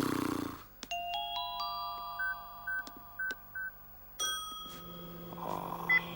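Cartoon music cue: a rising run of ringing glockenspiel-like notes, each left to sound on. Four short high beeps come over it, then another struck chord, and a low steady hum follows.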